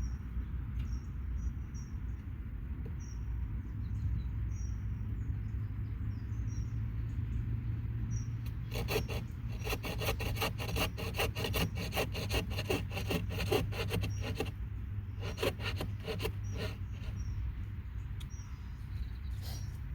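A rapid run of rasping, scraping strokes, several a second, starting about nine seconds in and lasting some five seconds, then a shorter run a little later, over a low steady rumble with faint high chirps.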